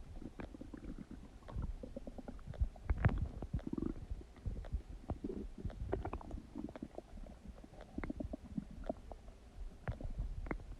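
Human stomach and intestines gurgling while digesting: an irregular run of low rumbles, bubbling squelches and small pops, busiest about three seconds in.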